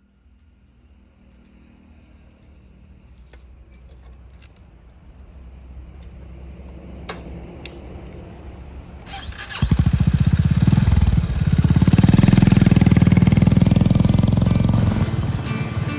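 Motorcycle engine starting: a faint low hum that slowly grows louder, with a few sharp clicks, then about ten seconds in the engine fires and settles into a loud, rapidly pulsing idle.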